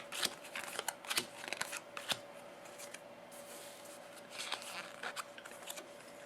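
Playing cards being dealt onto a table: a quick run of short card snaps and slaps in the first two seconds, then a few more about four to five seconds in.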